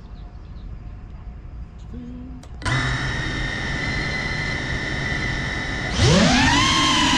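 Quadcopter drone's electric motors. About two and a half seconds in they start suddenly and spin at idle with a steady whine of several tones. Near six seconds in the whine gets louder and sweeps up in pitch as the throttle comes up for takeoff, then wavers up and down.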